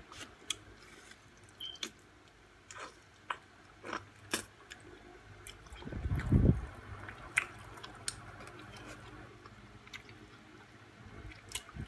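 Close-up chewing with wet, squishy mouth sounds and small clicks, with a louder low thump about six seconds in.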